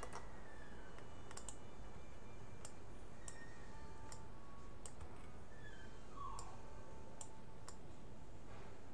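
Computer mouse clicking now and then, about a dozen short sharp clicks spread unevenly over steady background hiss.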